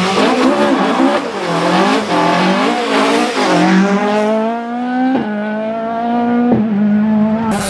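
Ford Escort Mk2 rally car engine revving up and down through a bend, then accelerating hard. The pitch climbs steadily and drops at two upshifts, about five and six and a half seconds in.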